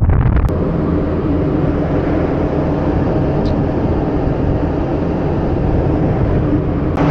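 Ship's engine-room machinery running with a loud, steady drone and a low steady hum under it.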